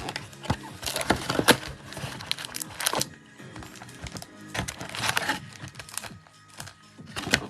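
Trading card pack wrappers crinkling and tearing as packs are ripped open by hand, in irregular crackly bursts, over steady background music.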